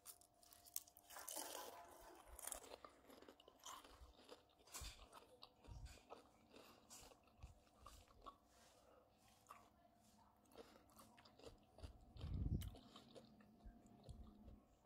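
Soft, crisp crunching and chewing of deep-fried onion rings, a run of irregular crunches close to the microphone. A dull low thump about twelve seconds in.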